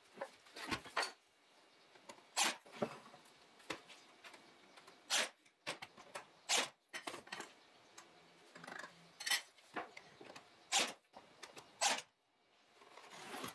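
Makita cordless nailer firing nails into a wooden frame: about eight sharp clacks, irregularly spaced a second or two apart.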